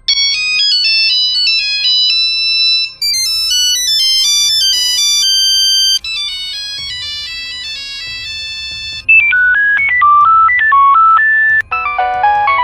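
Nokia mobile phone ringtone melodies played one after another, a new electronic tune about every three seconds; the tune from about nine seconds in is a single line of beeping notes.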